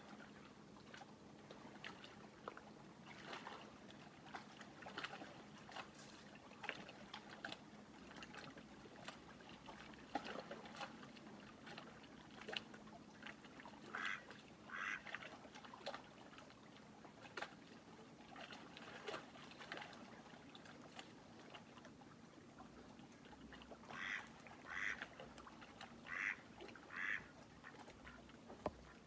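Ducks on the lake quacking faintly in short calls: a few scattered ones, a cluster about halfway through and a louder run of four or five near the end. Soft water lapping and a faint steady low hum sit underneath.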